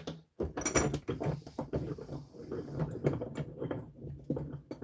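A busy run of irregular taps, clicks and light rattles of hard objects being handled and shifted about, close to the microphone.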